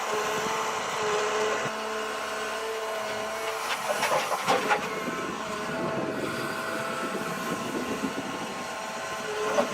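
Forestry forwarder working: a steady engine and hydraulic whine, with a burst of metal clanking and rattling about four seconds in.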